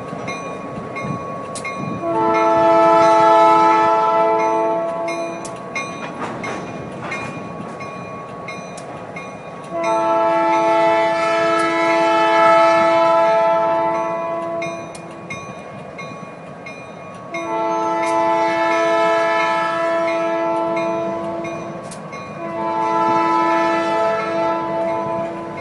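Locomotive multi-chime air horn sounding four long blasts with several steady tones together, over the rumble of a slow-moving freight train.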